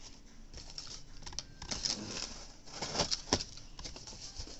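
Cardboard shipping box being opened by hand: flaps scraping and rustling, with two sharp cardboard snaps about three seconds in.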